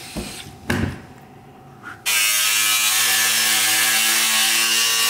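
Two short knocks, then about two seconds in an angle grinder starts cutting metal. It runs loud and steady, a held whine over a harsh grinding hiss.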